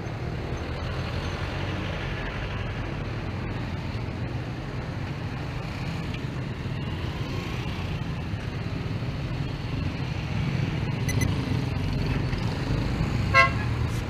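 Steady low rumble of a motor vehicle in street traffic, with a short, loud horn toot near the end.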